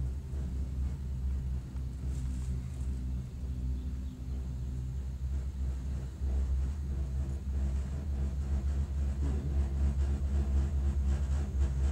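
Gondola cable car cabin running along its haul rope, heard from inside the cabin as a steady low rumble. It gets louder about halfway through, and near the end a fast, even clatter sets in as the cabin nears a support tower.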